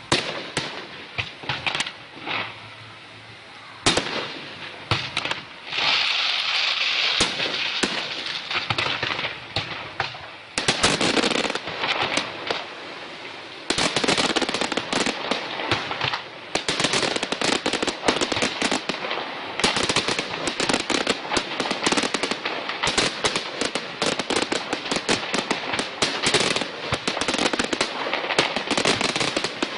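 Fireworks finale: scattered bangs and crackles that build into a near-continuous barrage of rapid pops and crackling from about halfway through, with a brief hiss of launching shells a few seconds in.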